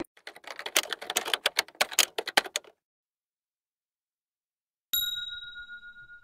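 A quick run of irregular clicks for the first two and a half seconds, then, after a short gap, a single bell-like ding that rings out and fades near the end.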